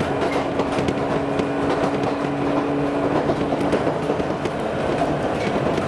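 Jomo Electric Railway 700-series electric train (ex-Keio Inokashira Line 3000 series) running along the line, heard from inside the carriage: steady wheel and running noise with a steady motor hum that fades out about three and a half seconds in.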